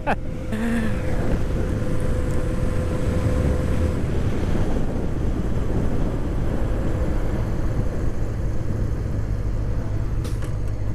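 Heavy wind noise on a helmet-mounted microphone while riding, over the 1981 Honda CB650's air-cooled inline-four engine running on its stock exhaust.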